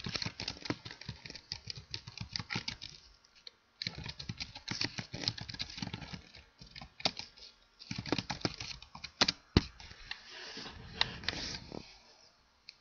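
Typing on a computer keyboard: quick runs of key clicks in bursts, broken by short pauses, with a few harder strikes standing out.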